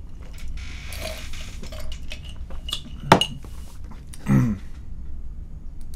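Scattered small clicks and clinks of objects being handled at a desk, with a brief hiss about a second in, a sharp click about three seconds in, and a short low sound just after.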